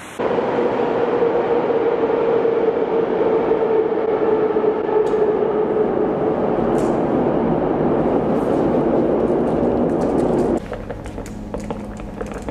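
Metro train rumbling through a tunnel with a faint, slowly falling whine. It cuts off abruptly about ten and a half seconds in, leaving a low hum and a few light clicks of handling.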